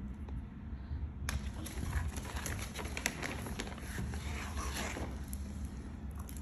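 Crinkly rustling of wrapping being handled, with many sharp crackles. It starts a little over a second in and stops near five seconds, over a steady low background hum.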